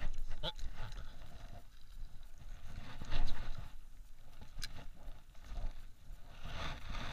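Handling noise of a spinning rod and reel on a plastic kayak while a hooked fish is fought: a few scattered knocks and clicks, the loudest about three seconds in, over a low rumble.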